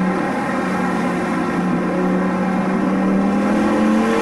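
Lamborghini Gallardo Superleggera's V10 engine heard from inside the cabin while driving. The note holds nearly steady, then slowly rises in pitch through the second half as the car gathers revs.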